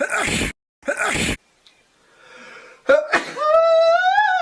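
A person sneezing twice in quick succession, two sharp explosive bursts of breath. About three seconds in comes another short burst, then a long, high-pitched vocal cry that rises and then falls.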